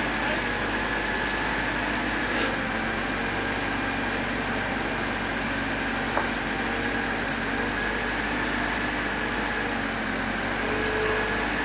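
Excavator's diesel engine running steadily at idle, with a single sharp click about six seconds in.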